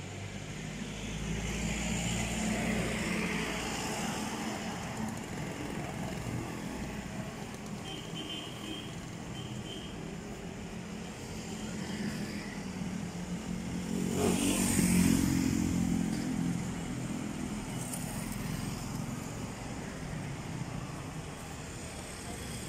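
Light street traffic: motorcycles and a car passing, one of them passing closer and louder about two-thirds of the way through.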